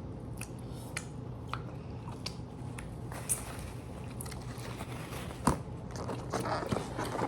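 Someone chewing and biting into food close to the microphone, with small crunches every half second or so and a sharper crunch about five seconds in.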